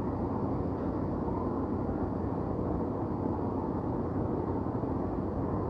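Steady low rumble of city ambience, with no distinct events standing out.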